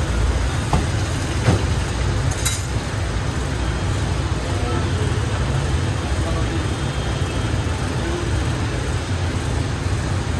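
Busy food-stall ambience: a steady low rumble with indistinct background voices, and a few sharp clicks of utensils in the first few seconds.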